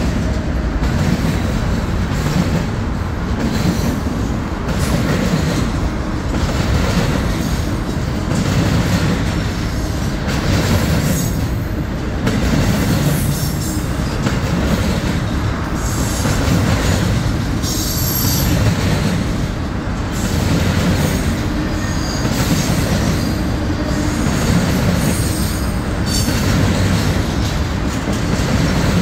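Freight cars of a Union Pacific double-stack container train rolling past, a steady rumble of steel wheels on rail with short, high-pitched wheel squeals now and then.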